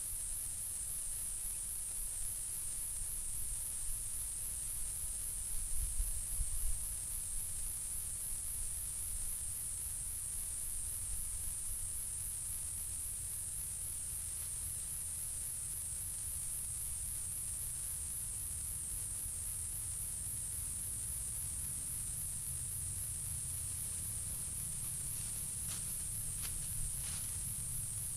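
Steady high-pitched insect chorus with a fast pulsing shimmer, over a low rumble. Brief low knocks a few seconds in, and a few sharp clicks near the end.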